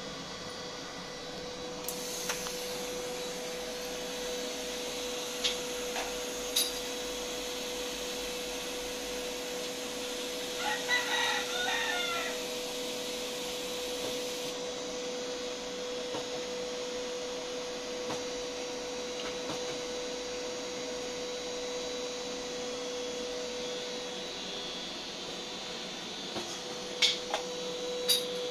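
A rooster crows once, a call of about two seconds, roughly eleven seconds in. Under it runs a steady machine hum with a constant tone, broken by a few sharp clicks.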